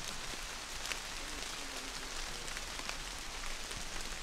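Rain falling on forest foliage: a steady hiss with single drops ticking sharply now and then.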